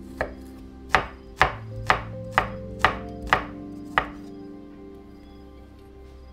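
Chef's knife chopping garlic cloves on a wooden cutting board: about eight sharp knocks, roughly two a second, stopping about four seconds in.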